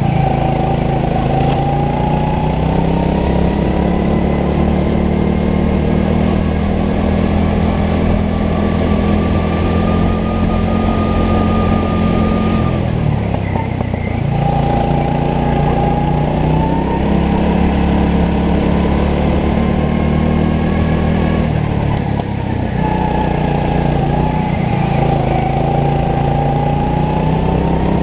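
Go-kart engine running under load through laps, heard from the driver's seat, its pitch climbing on the straights and dropping twice as the kart slows for corners.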